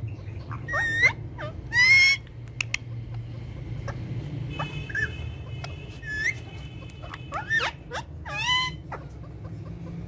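Rose-ringed parakeets calling: five or six short, shrill squawks that glide up and down, with smaller chirps between. The loudest comes about two seconds in. A steady low hum runs underneath.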